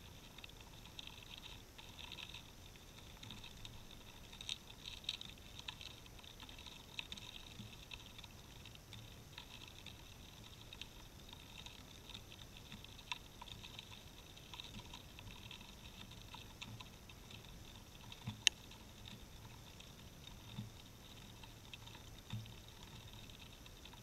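Faint, irregular clicking and crackling: a squirrel cracking and chewing sunflower seeds in the snow right beside the camera, with one sharper click about three-quarters of the way through. The audio runs at double speed.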